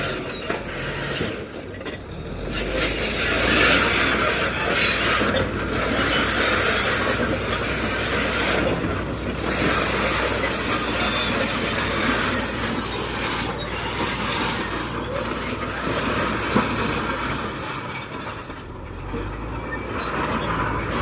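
Heavy earthmoving machinery at work: a diesel engine running under a steady, loud grinding and scraping noise, such as steel tracks or loose material being pushed.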